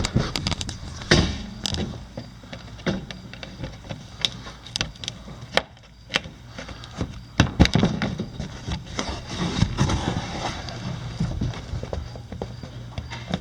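Flat-blade screwdriver prying plastic push-pin fasteners out of a plastic under-engine panel: irregular clicks, knocks and scraping, with sharper knocks a second or two in and again about halfway through.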